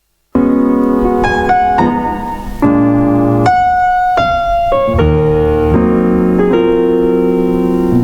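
Sampled piano chords from a vinyl record, played back on a Roland SP-404SX sampler. They start abruptly a moment in, and the chords change every second or so.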